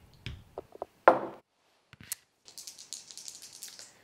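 Dice rattling quickly in a cupped hand over the last second and a half, before a roll. About a second in there is a single sharp knock, and a few light ticks at the start.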